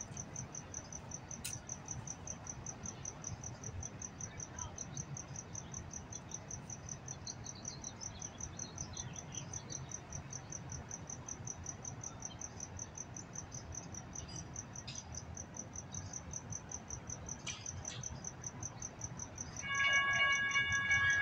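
A cricket chirping in a fast, even, high-pitched pulse. Near the end the railroad crossing's electronic warning bell starts up, a steady ringing tone much louder than the cricket: the crossing activating for an approaching train.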